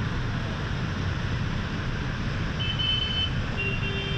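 Steady rushing noise, with a high steady tone about two and a half seconds in and another near the end.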